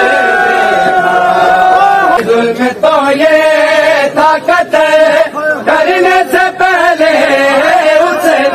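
A noha, a Shia Muharram lament, chanted in Urdu by a male voice in a slow, wavering melody with long held notes. There are short breaks between phrases.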